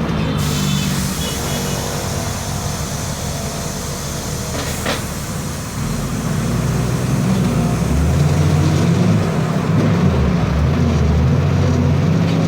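Turbocharged diesel engine of a VW 17.230 EOD articulated bus (Caio Apache Vip I) running on the move, with the turbo whistling. The engine pulls harder and gets louder from about six seconds in.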